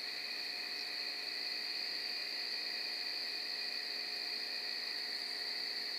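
Steady chorus of night insects: crickets trilling continuously in several overlapping high pitches.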